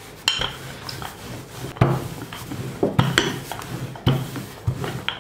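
Wooden rolling pin rolling out a sheet of yeast dough on a silicone baking mat, with five dull knocks about a second apart between the rolling strokes.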